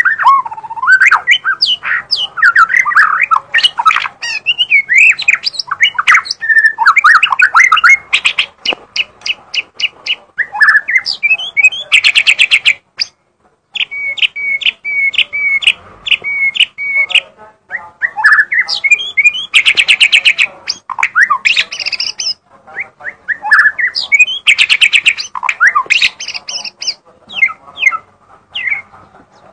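White-rumped shama (murai batu) singing non-stop: a varied stream of whistled phrases broken by several fast, harsh rattles and one run of short repeated notes.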